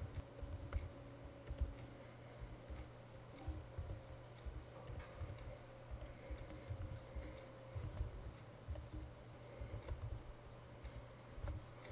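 Typing on a computer keyboard: irregular keystrokes in quick runs, broken by short pauses.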